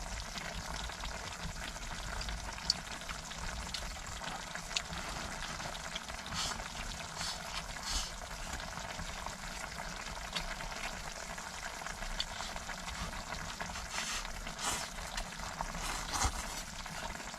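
Pot of cabbage, pork and tofu stew bubbling on a stove: a steady hiss with a few light clicks scattered through.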